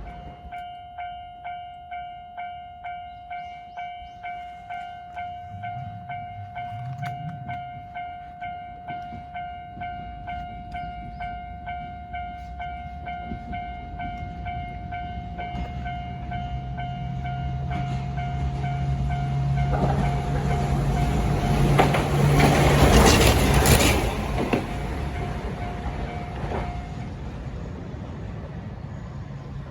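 Japanese level-crossing alarm sounding its electronic 'kan-kan' bell about twice a second as a Hankai Tramway streetcar approaches with a rising low motor hum. The tram passes over the crossing loudest a little after two-thirds of the way through, and the bell stops shortly after it has gone.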